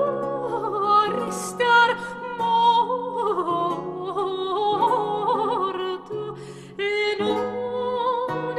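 Background music: a melody with wavering vibrato and glides between notes, over a steady lower accompaniment.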